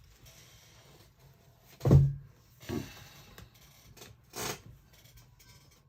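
Handling noises: a few scattered knocks and rustles, the loudest a single thump about two seconds in.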